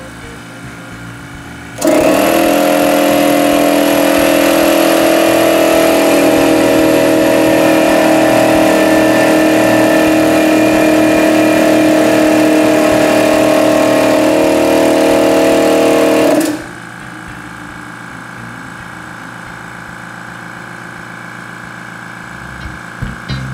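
Small portable air compressors running for comparison: a quiet oil-free Eagle EA-2000 Silent Series compressor gives a low, steady hum; about two seconds in, a much louder DeWalt hotdog compressor's pump runs with a steady drone for about fifteen seconds, then cuts off sharply, leaving the Eagle's quiet hum.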